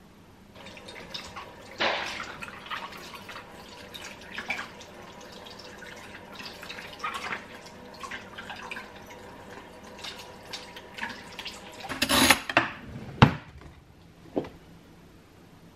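Water from a kitchen tap splashing and dripping as a red hot pepper is rinsed by hand, in uneven spurts. Near the end come a few sharp knocks, the loudest of them a single crack.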